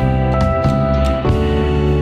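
Instrumental background music with sustained notes, changing pitch about a second and a quarter in.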